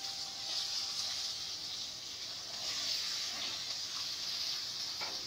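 Broad beans and potato pieces sizzling steadily in hot oil and fried cumin in an aluminium kadai, just after being added to the pan.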